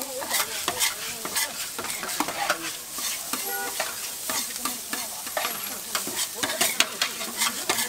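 Fried rice sizzling on a flat iron griddle while two metal spatulas scrape and clack against the plate in quick, uneven strokes.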